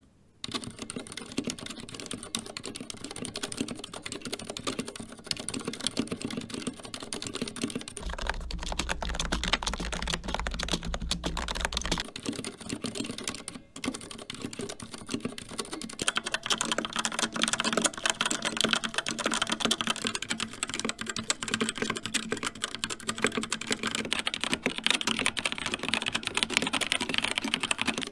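Continuous typing on a series of keyboards: first a CZC Halfling with Cherry MX Silent Red switches, muted clicks. About 8 s in it changes to a Lidl Silvercrest semi-mechanical keyboard, with a steady low hum under the first few seconds. From about 16 s the clicking on a CZC Nightblade with Outemu Red switches is brighter and louder, followed near the end by an Xtrfy K4 with Kailh Red switches.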